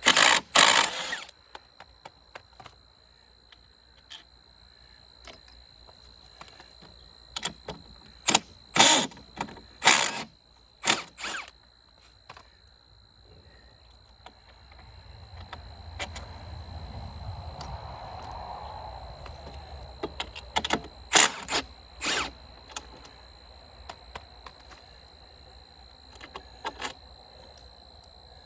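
Sharp metal clanks and knocks of parts and bolts being handled while taking apart an old sawmill frame, several loud single strikes spread out with pauses between them. In the middle a low rumble swells and fades over several seconds.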